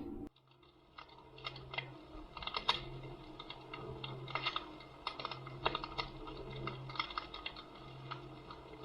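Fireplace crackling sound effect played through the small speaker built into a fireplace-effect lamp: irregular crackles and pops over a low steady hum.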